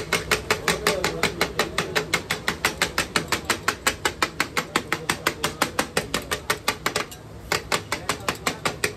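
Metal spatulas striking a large iron tawa griddle in a fast, even rhythm of about five clangs a second as mutton liver is chopped and tossed on it. The strikes pause briefly about seven seconds in, then resume.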